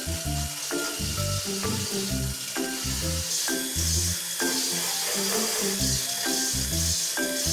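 Background music with a beat, over an electric hand mixer whisking egg white in a stainless steel bowl. The whisking hiss grows stronger about three seconds in as the egg white froths.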